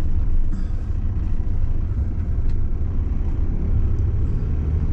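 Van engine running with a steady low rumble.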